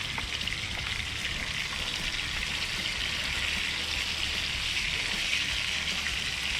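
Fish frying in hot oil in a pan: a steady sizzle that swells a little around the middle.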